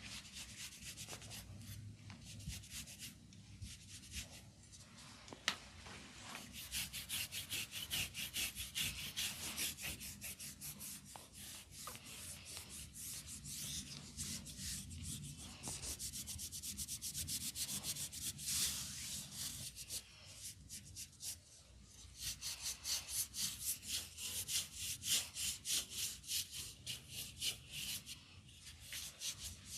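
Hands rubbing and kneading a person's scalp and hair during a close-miked head massage: quick, repeated rubbing strokes, several a second, coming in two long, louder stretches.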